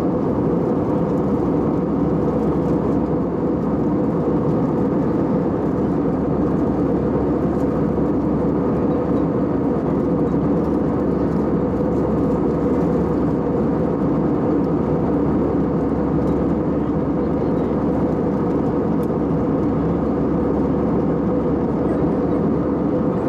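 Steady cabin noise of an Airbus A320-family airliner in cruise, heard from inside the cabin: an even rush of airflow and jet engines with a constant hum, unchanging throughout.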